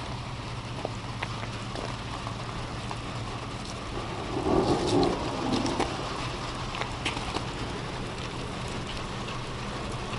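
Rain pattering on a truck, with scattered sharp ticks of drops over a steady low engine hum. A louder swell about four and a half seconds in lasts a second or so.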